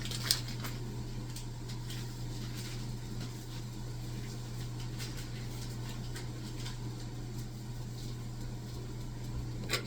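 Steady low hum, with a sharp knock shortly after the start and a few faint clicks of handling.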